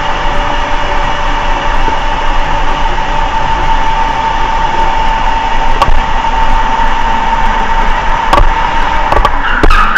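Electric go-kart's motor whining at a steady pitch over tyre and road noise, with a few sharp knocks near the end.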